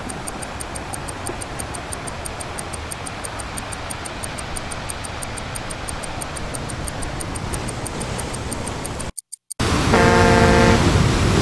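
Intro music with a fast, even ticking like a clock. It cuts out briefly, then a ship's steam whistle blows one loud, long blast of several pitches sounding together.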